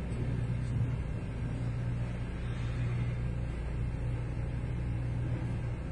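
A steady low hum of background room noise, with no distinct handling clicks.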